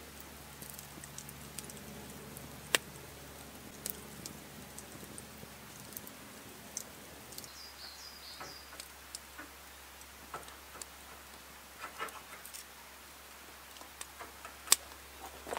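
Sparse sharp clicks and small knocks over a faint steady low hum. The two loudest clicks come about three seconds in and near the end, with a brief high wavering chirp about eight seconds in.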